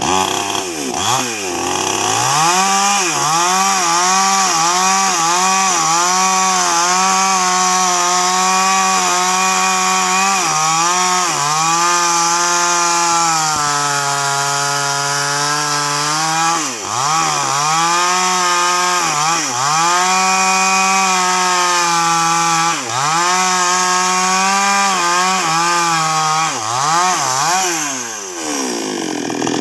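NWESST 628 two-stroke chainsaw cutting through a sengon log under load. Its engine pitch sags and recovers over and over as the chain bites, then falls away near the end as the cut finishes.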